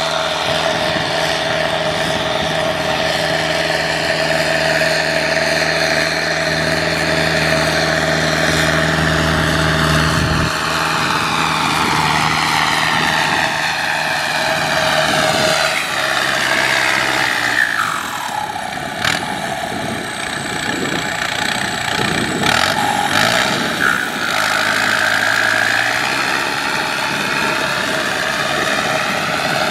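Kubota M6040SU tractor's diesel engine running while the tractor pushes mud with its front blade through a flooded paddy. The engine note is steady at first, drops in pitch just past halfway and rises again later, with a few sharp knocks in the second half.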